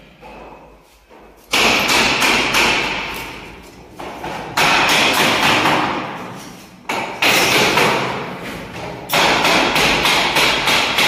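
Four loud bursts of knocking and rattling, each starting sharply and dying away over about two seconds.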